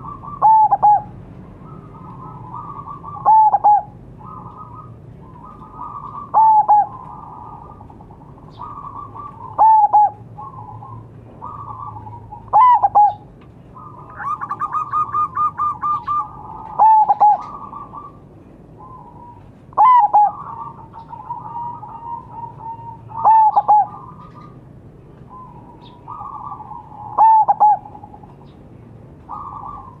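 Zebra dove (perkutut) song: loud cooing phrases about every three seconds, each ending in a short pair of falling notes, with softer cooing between them and a quick run of repeated notes about halfway through.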